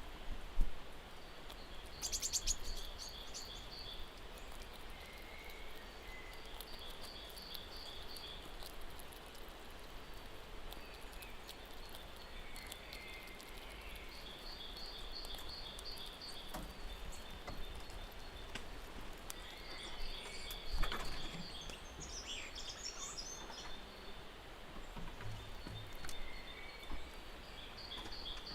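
Birds calling outdoors: a high trill of rapid, evenly spaced notes repeats every few seconds, with scattered chirps, over a steady background hiss. Two brief knocks, one just after the start and one about three-quarters of the way through, are the loudest sounds.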